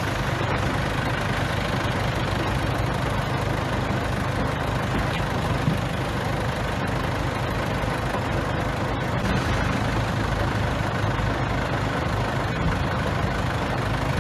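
Bulldozer's diesel engine running steadily, with one short knock about six seconds in.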